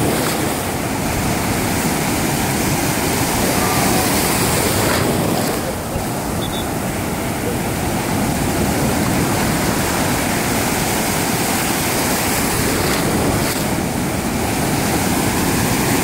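Rough sea surf: waves breaking and foamy water rushing around the waders, a steady loud wash with a brief dip about six seconds in.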